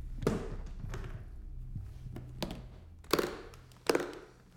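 Briefcase combination-lock latches snapping open: two loud, sharp metallic clicks less than a second apart, about three and four seconds in. Before them comes a thud about a quarter second in, under a low steady hum that fades out shortly before the latches open.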